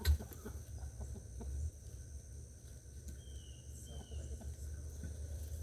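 Chickens clucking over a steady low rumble, with a single sharp knock just at the start.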